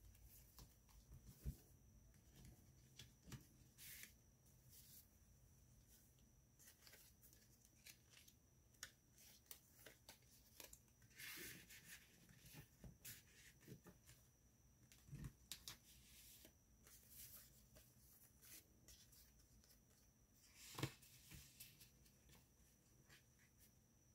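Faint rustling, sliding and soft taps of paper as the pages, tags and inserts of a handmade junk journal are turned and handled, with a sharper tap of the paper near the end as the loudest moment. A faint steady high-pitched whine sits underneath.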